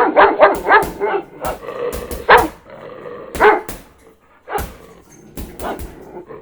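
Bandog barking repeatedly: a quick run of barks at first, then single barks about a second apart, growing fainter near the end.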